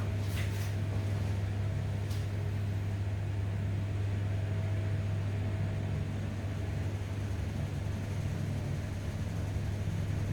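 Service lift's steady low hum heard from inside the car, with a few light clicks about half a second and two seconds in.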